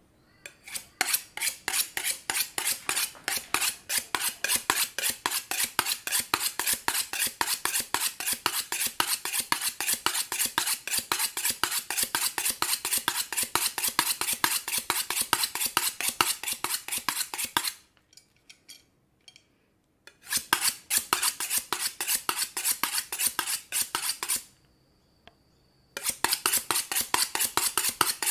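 A kitchen knife being sharpened: quick, rhythmic metal scraping strokes of the blade, about four a second, stopping twice for a second or two before carrying on.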